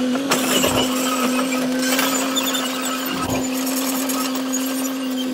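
L&T-Komatsu PC200 hydraulic excavator running, with a steady humming tone. There are two low thuds, about a second in and just past three seconds.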